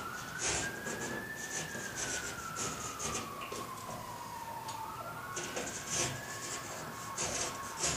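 Utility knife scoring the paper face of drywall in a series of short scratching strokes along a traced line. A siren wails slowly up and down in the background, rising, falling over several seconds, then rising again near the end.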